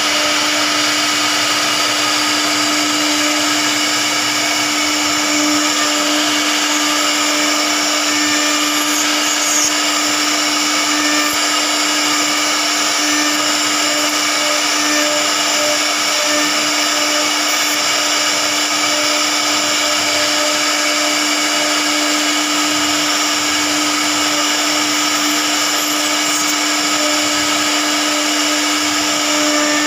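CNC router spindle running with a steady high whine as its small carving bit cuts a relief pattern into a wooden door panel.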